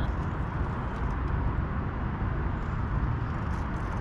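Steady low rumbling outdoor background noise, heaviest in the bass, with a few faint ticks.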